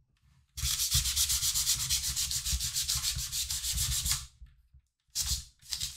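Worn, very fine polishing sponge rubbed in quick back-and-forth strokes over the airbrushed primer on a plastic scale model, sanding back the paint's rough texture to leave it smooth. The strokes start about half a second in, pause briefly about four seconds in, and start again near the end.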